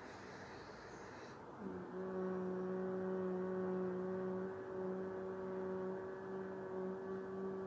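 A deep breath drawn in through the nose, then about a second and a half in a woman's steady, low hummed 'mmm' on the out-breath: the bee breath (bhramari pranayama), held at one pitch with a couple of brief dips.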